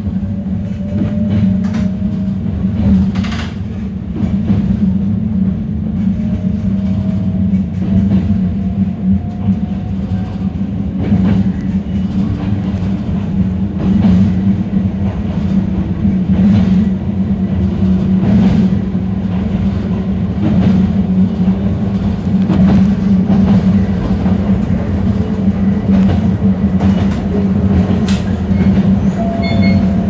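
Toyama Chiho Railway 10030-series electric train running, heard from inside the cab: a steady low rumble of wheels and motors, a faint slowly rising whine, and scattered clicks over the rail joints. A level-crossing bell starts ringing near the end.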